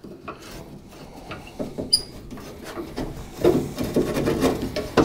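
Hand screwdriver turning a Phillips head screw out of the steel access plate on a truck tailgate: an uneven metal-on-metal scraping and grating with small clicks, louder in the second half.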